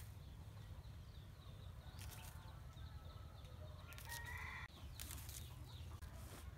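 Domestic chickens clucking, with one short pitched call about four seconds in, over a steady low rumble.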